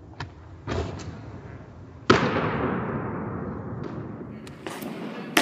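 Baseballs smacking into catchers' leather mitts during pitching practice: a few sharp smacks, the loudest about two seconds in and another near the end, each trailing a long echo in a large gymnasium.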